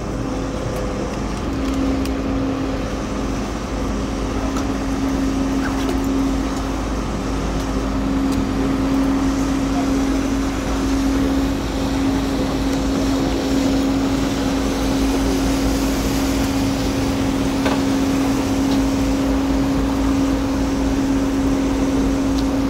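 Vaporetto water bus's diesel engine running steadily as the boat cruises, a constant hum over a low rumble, with water and wind noise.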